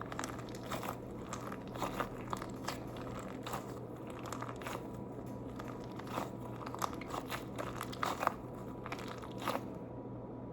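Scattered crisp crackles and crunches as a butter squishy toy is squeezed and handled in the hands.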